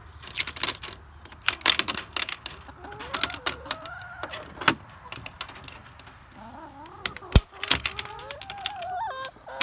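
Hens clucking and calling inside a wire-mesh coop, with repeated metallic clicks and rattles from the coop door's hasp latch and clip being unfastened. The loudest sound is a single sharp click a little past seven seconds in.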